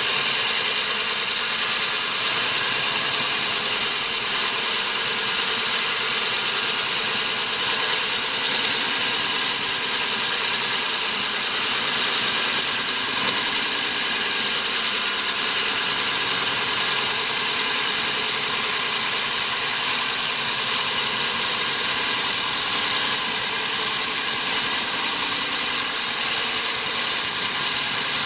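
Cuttronix CM-10S3 core drill (3.0 kW single-phase electric motor) running steadily under load as a 200 mm diamond core bit cuts down into concrete. A constant high whine with steady grinding, with no let-up or change in speed.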